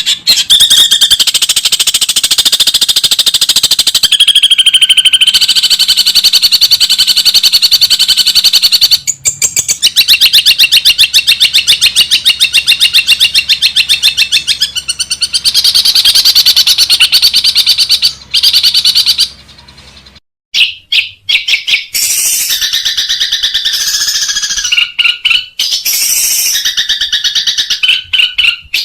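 Rapid, harsh bird chattering, many notes a second in long loud runs, broken by a few abrupt cuts about two-thirds of the way through: an edited bird-call master recording.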